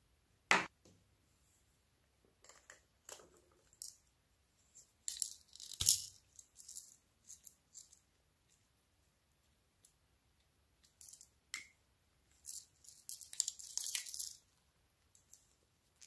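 Small plastic bottles of glitter glue and a tube of sprinkles being handled over a bowl of slime: a sharp click of a cap about half a second in, then short bursts of crisp rattling around six seconds and again near the end, with quiet gaps between.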